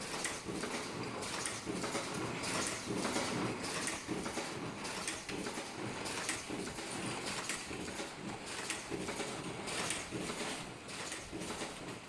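Automatic ultrasonic face mask making machine running, with a steady mechanical clatter of repeated clacks and knocks from its moving parts.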